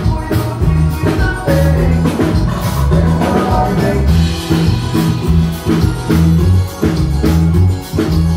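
Live band playing through a PA system: a drum kit keeping a steady beat, about two hits a second, over a heavy bass.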